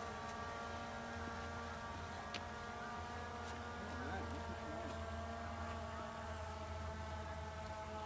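Skydio 2 quadcopter drone's propellers humming in flight, a steady whine of several tones at an even level.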